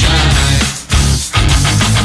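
Loud rock music with electric guitar, briefly dropping out twice near the middle.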